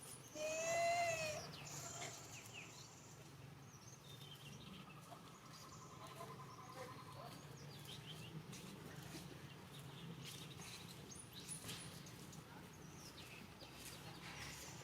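A monkey gives one short, high-pitched call about half a second in, rising and then falling in pitch. Faint background sounds and a low steady hum follow.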